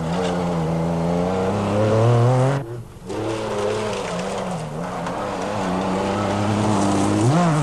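MG Metro 6R4 rally car's V6 engine running hard through a gravel corner, its revs wavering up and down. The sound drops out briefly about two and a half seconds in, and the revs climb sharply near the end.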